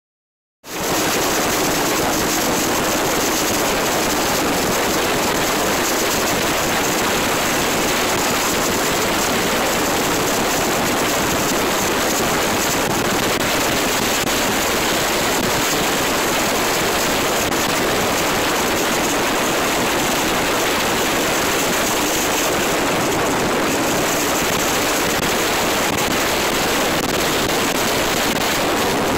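Steady rush of wind and road noise on the microphone of a vehicle moving alongside a motorcycle, starting abruptly about half a second in. The motorcycle's engine is not distinct under it.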